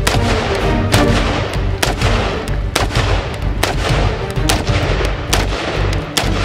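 Romanian CGR AK-47 rifle firing 7.62×39 rounds in single shots, about one a second, over background music.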